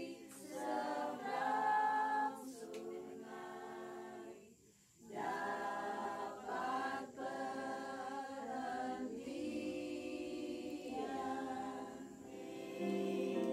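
A small group of women singing a hymn together in unison, unaccompanied, with long held notes and a short break for breath about four and a half seconds in.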